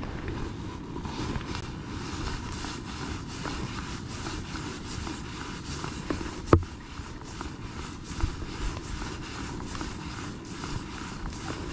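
Fly line being stripped in by hand through the rod guides: soft rustling and small ticks over a low rumble of wind and water, with one sharp click a little past halfway.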